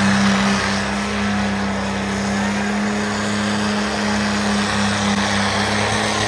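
Second-generation Dodge Ram diesel pickup's engine held at steady high revs while its rear tires spin in a smoking burnout.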